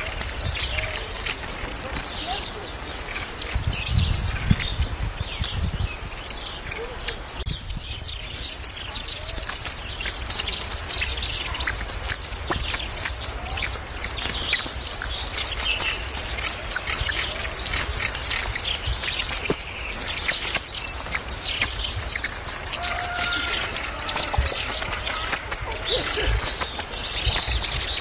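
Red-necked tanager singing: a continuous stream of very high, thin, rapid notes.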